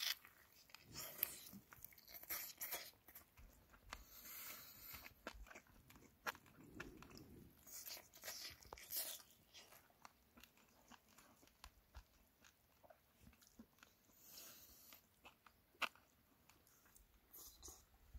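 A person biting and chewing a braised chicken drumstick, in short, irregular bursts.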